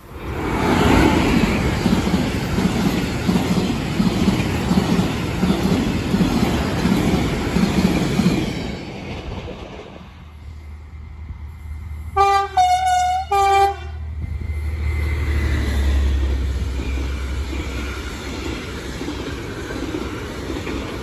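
A train passes close at speed: a loud rush of wheel and air noise that starts suddenly and lasts about nine seconds. About twelve seconds in, over a locomotive's low hum, its horn sounds three short two-tone notes (high, lower, high), and a freight train then rumbles steadily past.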